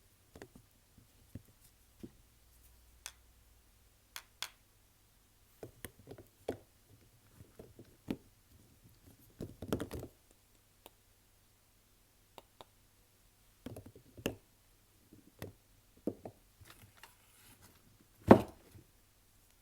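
Hands unpacking and handling bars of soap: scattered light taps and clicks with some crinkling of the wrapping, and one louder knock near the end as a bar is set down.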